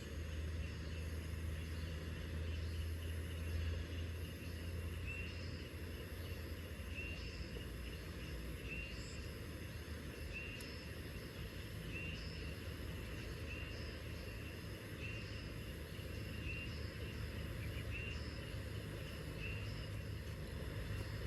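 Steady drone of insects, with a short high chirp repeating about every second and a half through the middle, and a low engine hum in the first few seconds that fades away.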